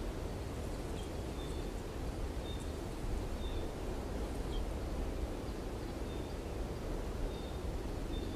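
Open-country outdoor ambience: a steady low rush of wind, with faint short high chirps repeating every second or so.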